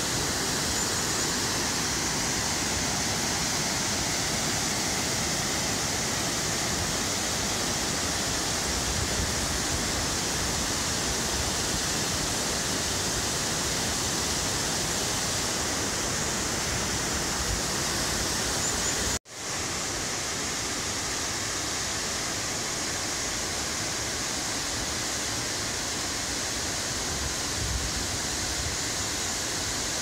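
Steady rush of the Vânturiș waterfall, falling water heard without a break except for a momentary dropout about two-thirds of the way through.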